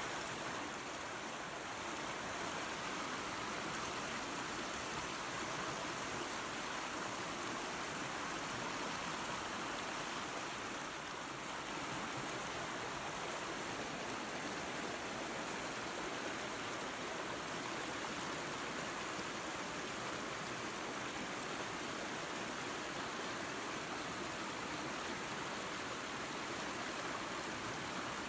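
Small waterfall and creek water running and splashing, a steady rushing noise.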